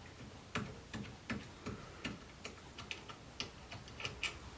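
Light, quick clicking, about three clicks a second, as screws are worked out of the front of a Record 23 vice.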